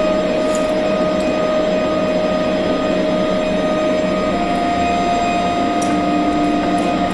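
A steady hissing drone with one held tone that steps slightly up in pitch about four seconds in. A fainter lower tone sounds for about a second near the end.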